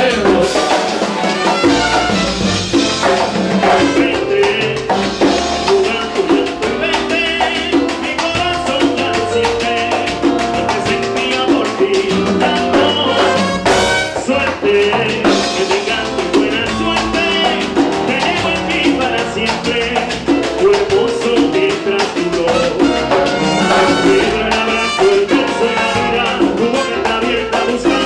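Live salsa combo playing: horn lines over congas and timbales, with the lead singer and chorus singing into microphones.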